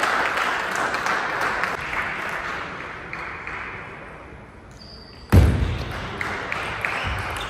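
Table tennis point: about five seconds in a sudden loud thump starts it, then the celluloid ball clicks back and forth off the paddles and table. Before that, the hall noise dies down.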